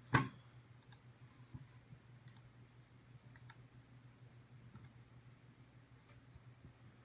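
Corsair Strafe RGB mechanical keyboard with Cherry MX Brown switches: one loud keystroke clack right at the start, then a few faint, widely spaced key clicks, some in quick pairs, over a steady low hum.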